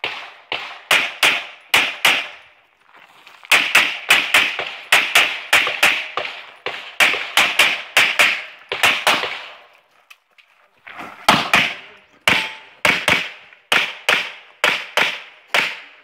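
Rapid strings of pistol shots from a Sig Sauer P320 X-Five Legion in 9mm, each crack ringing briefly. They come in quick pairs and runs, with two short breaks about 3 seconds and 10 seconds in.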